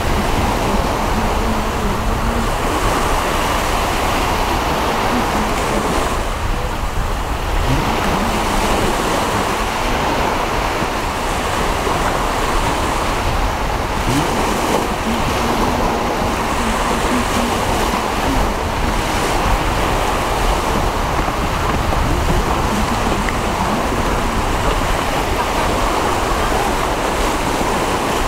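Strong wind and choppy sea: a steady rushing noise of wind buffeting the microphone over small waves.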